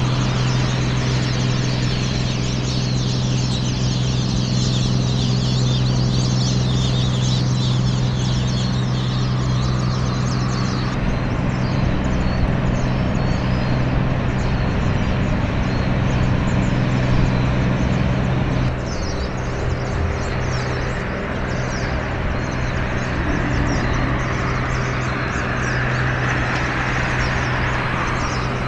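A steady low engine drone, with a flock of birds calling high over it through roughly the first ten seconds; the drone drops in level about two-thirds of the way through.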